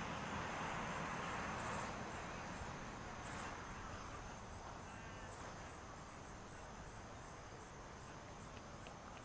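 Insects chirping: a steady high trill with three short, sharper high chirps spread over the first half, above a faint background hiss that slowly dies away.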